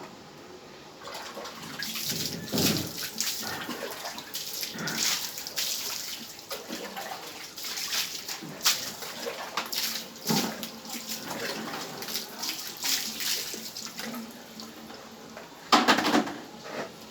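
Water splashing and running in a bathtub as a dog is washed, in uneven surges, with one louder burst near the end.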